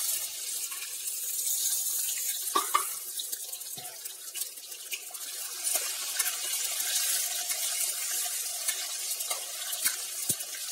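Raw peanuts deep-frying in hot oil in a steel wok: a steady sizzling hiss, with a few sharp knocks of the metal spatula against the wok as they are stirred.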